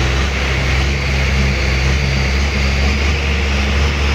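Long-tail boat's engine running steadily as the boat cruises along a canal: a low, even hum with a steady hiss of water and wind above it.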